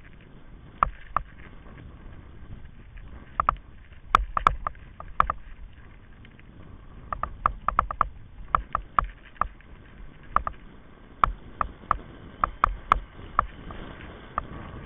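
Kite buggy running fast over firm beach sand: irregular sharp clicks and knocks, some in quick clusters, from the buggy rattling over bumps, over a steady low rumble of wind and tyres.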